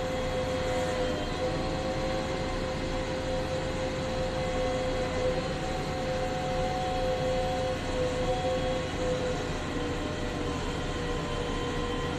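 Electric motor and gearbox of a toy RC construction vehicle whining steadily at one pitch, with slight wavers, over a constant low hiss.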